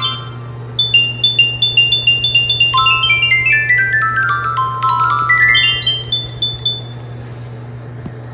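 A quick tune of bell-like chime notes, glockenspiel-like in tone. It starts by skipping back and forth between two high notes, then runs down the scale in steps, then climbs again before stopping. A steady low hum runs underneath and stays after the chimes end.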